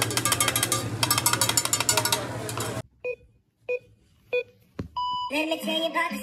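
Restaurant clatter of dishes and utensils clinking over a low hum, cut off suddenly after nearly three seconds. Three short electronic beeps follow, then a pop song with singing starts near the end.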